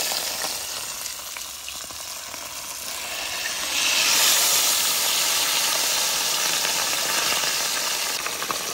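Masala-coated fish pieces sizzling skin-side down in hot mustard oil on a large tawa, a steady frying hiss that grows louder about four seconds in.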